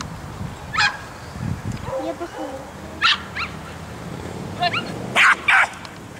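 A dog barking in short, sharp barks, about five in all, the two loudest in quick succession near the end.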